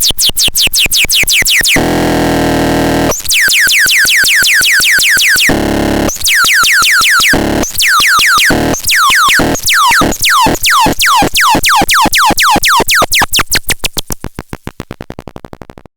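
Electronic synthesizer playing rapid repeated zaps, each a tone sweeping down in pitch, several a second, twice broken by a dense noisy burst. The hits fade out over the last couple of seconds and stop abruptly near the end.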